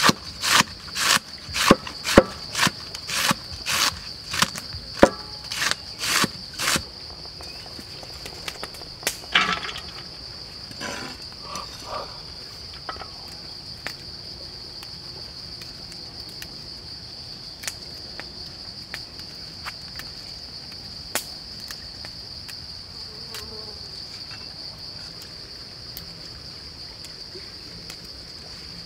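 A heavy cleaver chopping red cabbage on a wooden board, about two strokes a second, stopping about seven seconds in. Behind it a steady high-pitched drone of insects, with faint rustling and snapping of herb stems later on.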